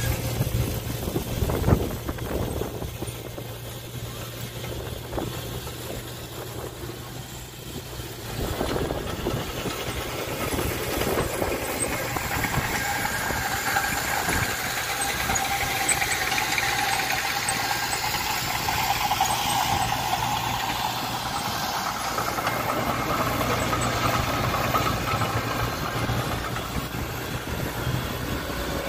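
Diesel dump truck approaching along a dirt road, its engine and tyres growing louder from about eight seconds in, over a steady low engine hum. A sharp knock comes about two seconds in.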